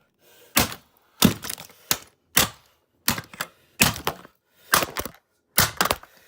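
Repeated blows smashing the plastic body of a Dirt Devil Classic race car vacuum: about eight sharp strikes, a little under a second apart.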